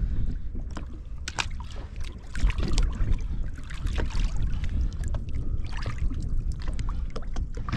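Sea water splashing and sloshing beside a small boat, over a low rumble of wind on the microphone, with scattered knocks and splashes.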